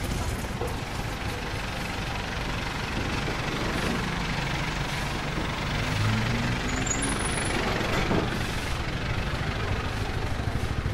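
Street traffic: a steady din of vehicle engines running.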